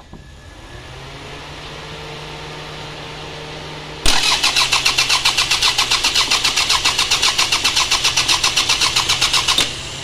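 Toyota RAV4 starter motor cranking the engine: after a low steady hum, the engine turns over with an even pulsing about six times a second for roughly five seconds, then stops without catching. The starter now cranks through the newly fitted starter relay, but the engine is hard starting, which the mechanic suspects is a fuel pump problem.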